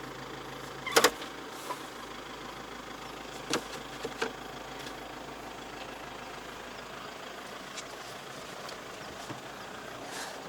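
Off-road vehicle running steadily at low speed on a rocky mountain track, with a few short sharp knocks about one, three and a half and four seconds in.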